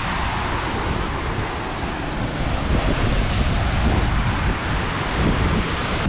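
Steady rushing of a waterfall cascade, with wind buffeting the microphone in an uneven low rumble.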